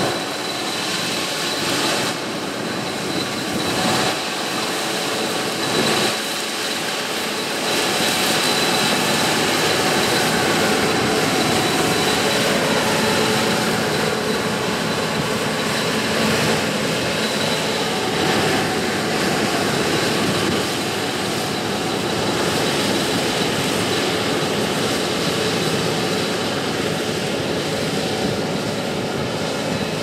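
Gleaner S96 combine's six-cylinder, 8.4-litre twin-turbocharged diesel engine running under load while the machine harvests soybeans, a steady drone. It grows a little louder about eight seconds in and then holds steady.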